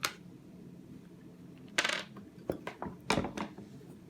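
Small metal jukebox mechanism parts being handled: a sharp click at the start, a ringing metallic clink about two seconds in, then a quick cluster of clicks around three seconds in.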